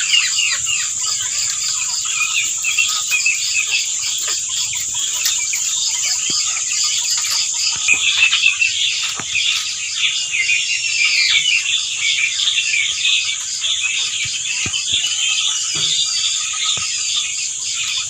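A crowded shed of caged quails calling all at once: many overlapping high chirps and short gliding calls, over a steady high-pitched hiss.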